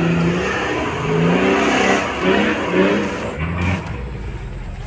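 Off-road 4x4's engine revving in repeated surges that rise and fall in pitch. Near the end it settles to a lower, steadier rumble.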